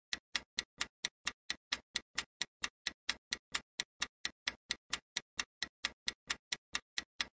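Clock-ticking sound effect of a quiz countdown timer, marking the time left to answer: rapid, even ticks, about four and a half a second.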